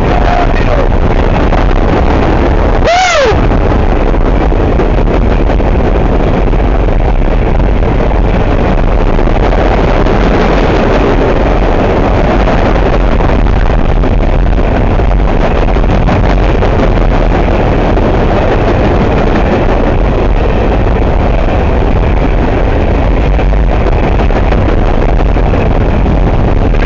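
Freight train passing close by: a loud, steady rumble of wheels on rail. A short tone that rises and falls in pitch sounds about three seconds in.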